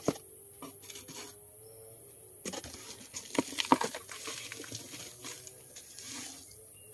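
Cardboard shipping box being handled and cleaned of loose soil: scattered light taps and rustling, busiest from about two and a half to four seconds in.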